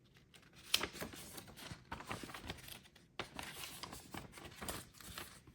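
Paper and packaging being handled: irregular rustling with small clicks and taps.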